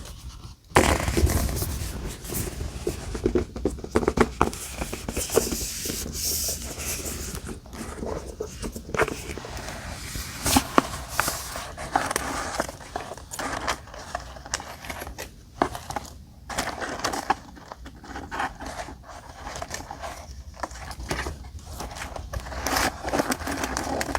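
Paper being handled while decorating a journal with die-cut pieces: sheets and cut-outs rustled, slid and scraped across the page, with many small taps and clicks and a thump about a second in.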